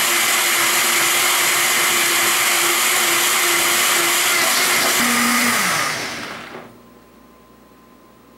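Countertop blender running at speed, blending a mix of frozen foods and water. Its motor note drops about five seconds in, and the blender winds down to a stop about a second and a half later.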